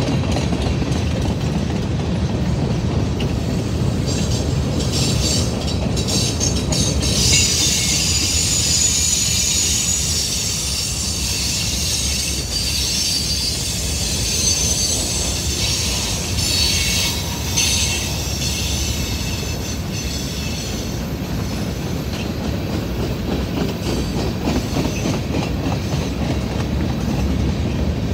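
Manifest freight train's boxcars and reefers rolling past: a steady rumble with clattering wheels on the rail joints. From about four seconds in until about seventeen, a high-pitched wheel squeal rides over it.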